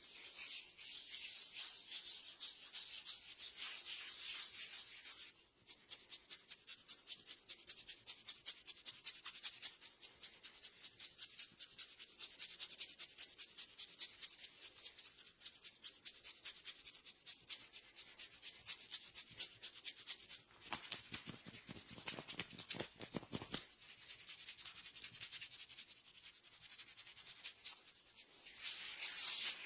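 Hands rubbing a person's hair and scalp in a head massage: a hissing rustle of hair, which about five seconds in turns into fast rhythmic strokes, several a second, a few of them stronger a little past the middle.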